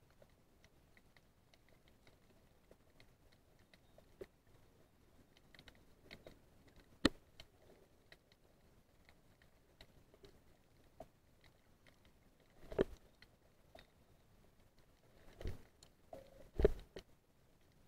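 Underwater audio from a baited camera rig on the seabed: scattered faint clicks and crackles, with a few short, dull knocks against the rig, most of them in the second half.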